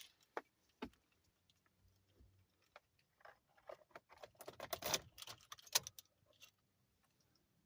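Irregular light clicks and rattles, with a denser run of clicks about four to five seconds in.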